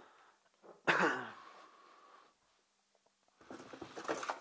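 Tools clattering and rattling as a hand rummages through a plastic toolbox, a dense run of knocks over the last second or so; a single brief sudden noise about a second in.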